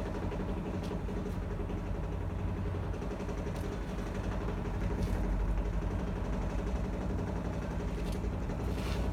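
A steady low mechanical hum, like a motor or engine running in the background, with a few light clicks.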